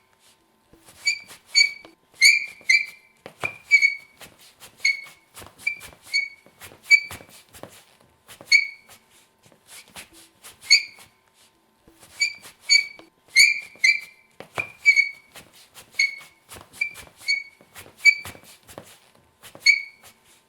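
Sneaker soles squeaking on a floor: many short, high squeaks at an uneven pace, often in quick pairs, with light taps of footsteps between them.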